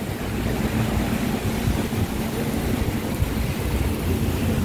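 Tractors driving past in a slow convoy, a steady engine drone under the even hiss of heavy rain.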